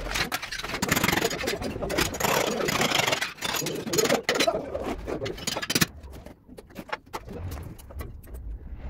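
Pointed steel trowel scraping and spreading wet cement mortar over a concrete floor as a tile bed, a dense run of scrapes and slaps that stops about six seconds in.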